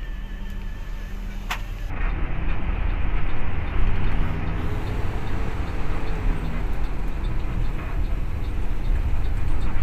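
Cabin noise of a Mercedes-Benz OH1526 bus: a steady low engine hum under road and interior rumble. A single sharp click comes about 1.5 s in, and the noise steps up louder and fuller about 2 s in.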